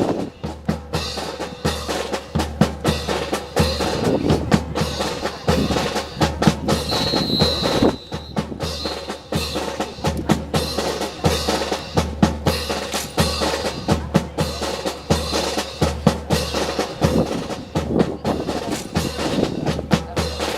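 Marching drums, snare and bass drum, beating a steady cadence with quick sharp snare strokes over an even bass-drum pulse, keeping time for a drill team.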